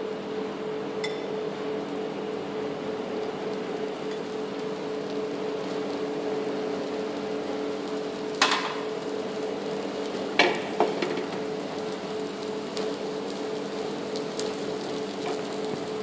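Dosa batter sizzling steadily in oil on a hot flat tawa, over a steady low hum, with a few brief knocks about halfway through and again a couple of seconds later.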